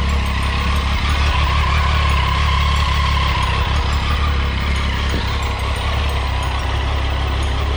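Motorcycle riding at a steady pace: constant wind rush on the camera microphone over the engine, holding steady throughout with a faint steady whine.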